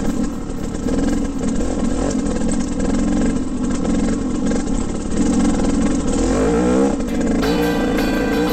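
KTM 300 two-stroke dirt bike engine running as the bike rides over a rough, rocky trail, heard from on the bike. The revs rise and fall near the end, and music comes in about a second before the end.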